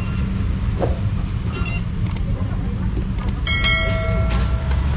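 Steady low rumble of street traffic, with a few sharp clicks and, from about three and a half seconds in, a ringing tone held for about a second.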